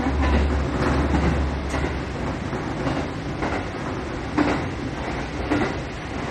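Diesel railcar running slowly, heard from inside the car, its wheels knocking irregularly over points and rail joints, with the loudest knock about four seconds in. A low drone under the running noise drops away about a second in.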